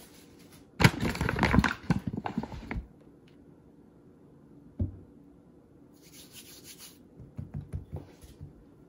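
A hand scattering flour and rubbing it across a wooden board to dust it before rolling out pie dough. The brushing and scraping is loudest for about two seconds near the start, with a single knock about five seconds in and lighter scrapes and taps near the end.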